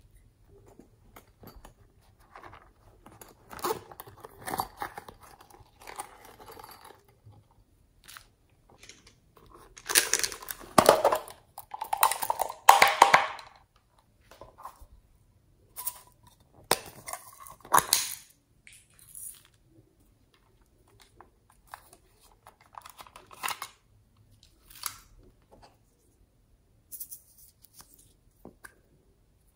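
Small plastic cups of slime toppings handled and shaken out over a tray of slime: bursts of crinkly rustling and clicking plastic, loudest about ten to thirteen seconds in.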